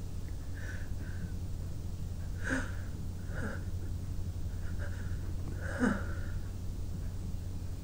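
A person's short breathy gasps and sniffs, about half a dozen, the strongest about six seconds in: the catching breaths of a sneeze building up while the nose is being tickled.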